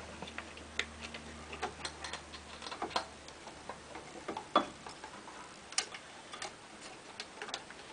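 Irregular light clicks and taps of a wire and fingers brushing against the wiring harness and metal parts under a pinball playfield, as a laser lead is fished up through a hole. A faint low hum fades out about halfway.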